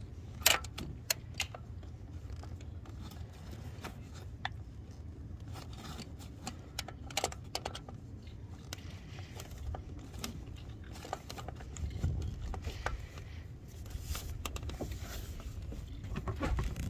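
Half-inch ratchet with a 3/8 reducer clicking in short, irregular strokes as a spark plug is tightened through a swivel socket, over a low rumble.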